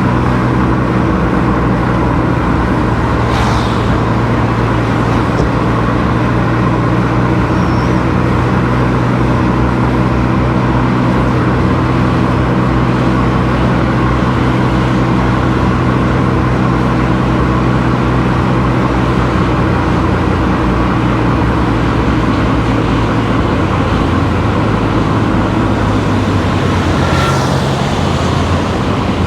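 Car engine and tyre noise heard while driving, a steady drone throughout. Two other vehicles whoosh past, one about three seconds in and one near the end.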